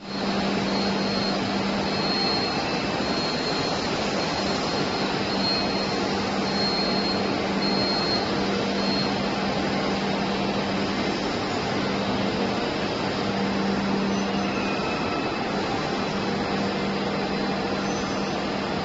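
Plastic pipe production machinery with a pipe coiler winding pipe, running steadily: an even machine noise with a steady low hum.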